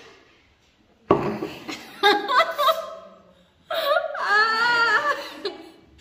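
Wordless vocal reactions with laughter, in two bursts: a sudden loud one about a second in and a wavering, drawn-out one near the four-second mark, in reaction to the bitter taste of pure bitter gourd juice.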